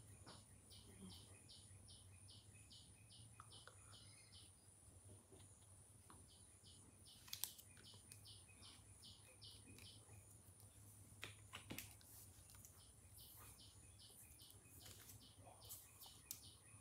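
Near silence: faint, high, evenly repeated chirps, about three a second, come in three runs of a few seconds each over a low steady hum. A couple of soft clicks fall near the middle.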